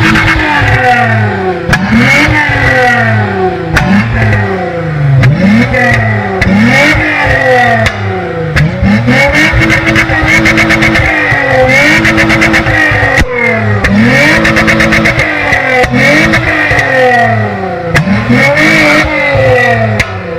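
VW Golf Mk3 VR6 engine free-revving in quick blips, about ten times, its pitch climbing and falling back each time. Several revs are held at the top for a second or so with a rapid stutter, the engine bouncing off its rev limiter.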